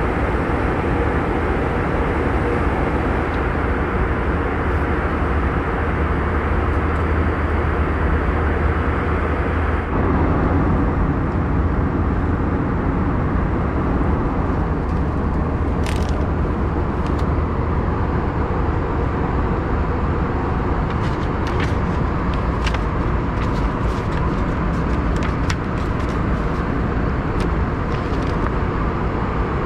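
Steady low rumble of an Airbus A321 airliner cabin, heard from a first-class seat; its tone shifts slightly about ten seconds in. Later come a few light clicks and rustles as the seatback pocket and the paper safety card are handled.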